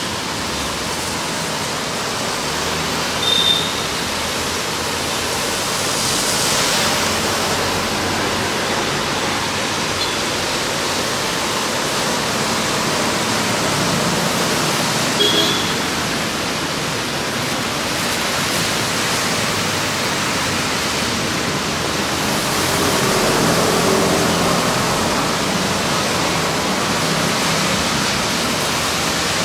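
Steady hiss of heavy rain on a flooded city road, with vehicle tyres swishing through the standing water; louder swells as vehicles pass about six seconds in and again near 23 seconds. Two brief high chirps, one about 3.5 seconds in and one about 15 seconds in.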